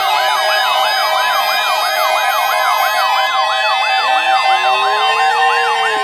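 Several weather alert radios sounding their alarms together: steady electronic alert tones under a rapid siren-like yelp that sweeps up and down about three times a second. A slower, lower wail rises and falls near the end. This is an incoming severe weather alert.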